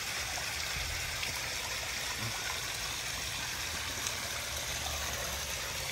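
Backyard koi pond waterfall: water splashing and trickling steadily, with a low steady hum underneath.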